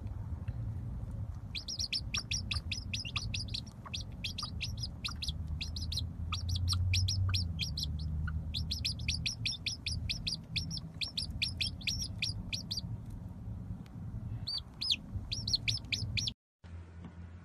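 Young domestic chicks peeping in rapid runs of short, high chirps, several a second, with brief pauses, over a low steady rumble.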